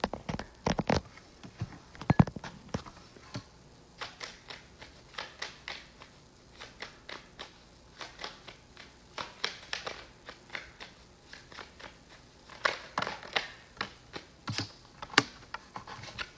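A deck of tarot cards being shuffled by hand, the cards giving quick, irregular runs of clicks and taps, with a few louder knocks near the start.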